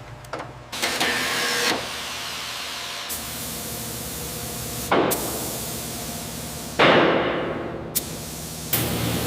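Workshop tool noise: a series of hissing, spray-like bursts, two of them starting with a sharp knock and fading away.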